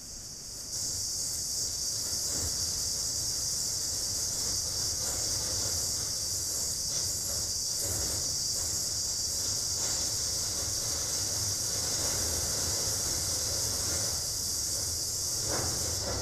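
Electronic sound installation playing a steady, high-pitched hiss of filtered noise that comes in about a second in, over a faint low hum; a louder sound begins to swell near the end.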